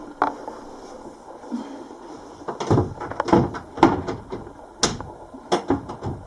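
Small kitchen cabinet door being fitted back onto its hinges: a run of sharp knocks and clacks, starting about two and a half seconds in.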